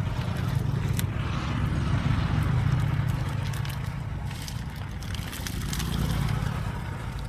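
A cast net heavy with water weeds being hauled and dragged over grass: scattered rustling and crackling of the plants and netting, over a steady low rumble.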